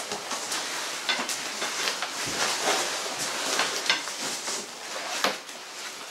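Cardboard box being handled and its flaps pulled open: a steady scraping rustle with many small clicks and knocks.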